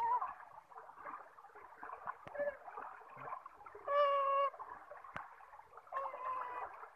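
Homemade electrofishing rig whining: a short, steady electronic tone about four seconds in and another near the end as the probes are switched on in the water, with light splashing and knocks from wading in between.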